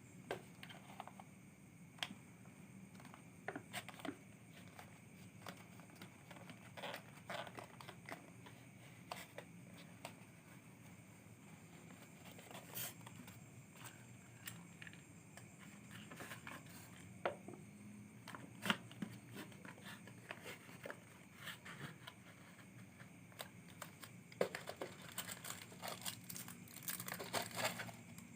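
Faint, irregular crinkling and rustling with scattered small clicks, growing busier near the end.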